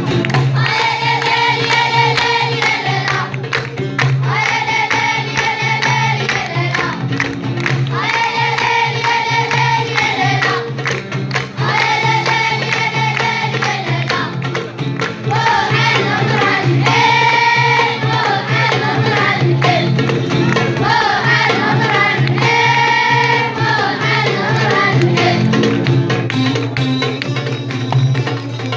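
Children's choir singing an Amazigh song together, in repeated phrases of about two seconds each.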